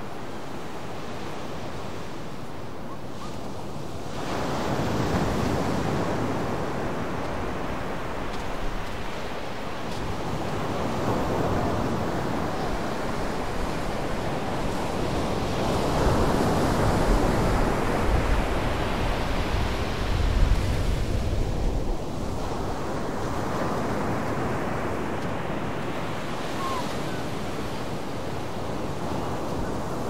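Surf breaking and washing up a sandy beach, the wash rising and falling in long swells several seconds apart. Wind rumbles on the microphone, loudest a little past the middle.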